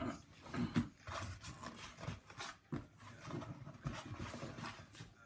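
Cardboard box and packaging being handled while the vacuum cleaner is worked out of it: irregular rustling and scraping with a few knocks.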